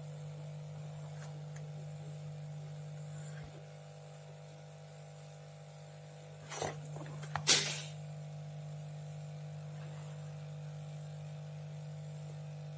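Hot-air rework station blowing onto the power IC of a feature-phone circuit board, a steady low hum. Two sharp clicks come a little past halfway, the second louder.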